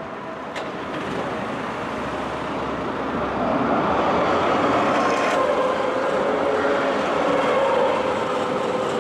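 Adtranz Class R3 tram approaching and passing close by on street track, getting louder over the first three seconds or so. Its running noise carries a steady whine, with a few sharp clicks.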